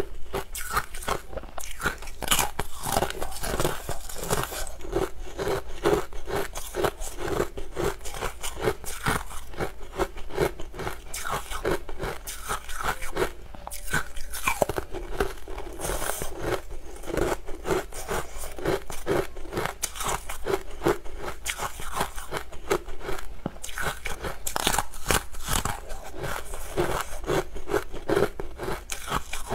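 Brittle amber sugar-candy sheets ('honey ice') being bitten and chewed: a dense, continuous run of quick crunches and crackles.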